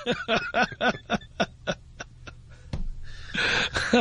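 A person laughing hard in a fast run of short 'ha' bursts, about four a second, that fade out about halfway. A breathy, wheezing gasp follows, then the laughter starts again near the end.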